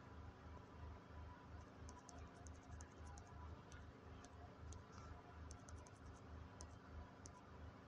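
Near silence with a low hum and faint, quick clicks in two clusters, about two seconds in and again between five and seven and a half seconds in: fingertip taps on a phone touchscreen as the arrow buttons are pressed repeatedly.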